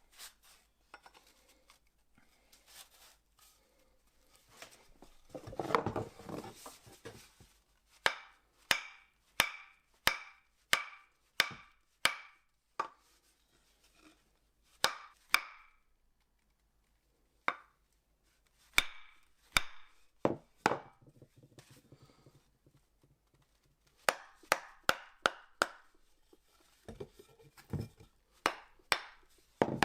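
Sharp wooden knocks in several runs, each strike with a short ring, as the hatchet head is knocked down onto its new oak handle. There is also a brief scraping about 6 s in.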